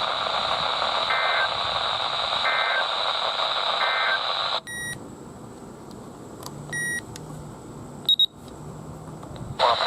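Three short two-pitch data-burst beeps about a second and a half apart over steady radio hiss: an Emergency Alert System end-of-message code. The hiss then cuts off suddenly to a quieter feed with a couple of faint short tones and a brief loud click before the noisy radio audio returns near the end.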